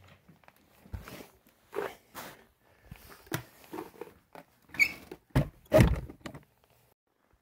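Footsteps and the handling of a wooden board door: a scattering of scrapes and knocks, with the loudest thuds about five to six seconds in.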